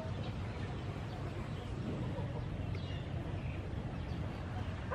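Faint chickens clucking with a few short high chirps over a steady low background hum.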